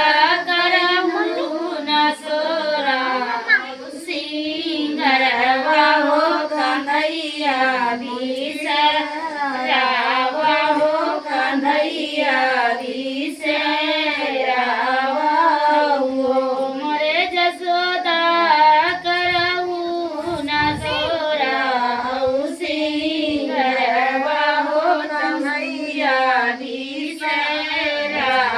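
A group of women singing a sohar, the folk song sung by women to celebrate a child's birth, in long wavering melodic phrases.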